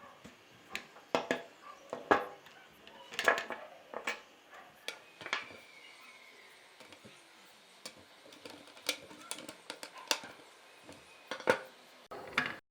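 Small metal typewriter parts clinking and knocking as they are handled: about a dozen irregular sharp clicks and taps, with a brief faint squeak in the middle, cutting off abruptly near the end.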